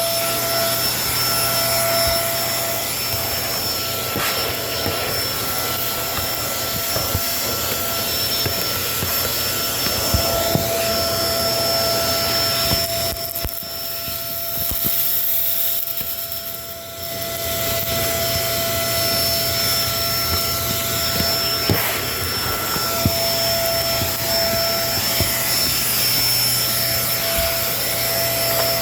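Kenmore vacuum cleaner running steadily with a high motor whine, with scattered clicks and ticks of debris being picked up. It goes briefly quieter about halfway through, then comes back up.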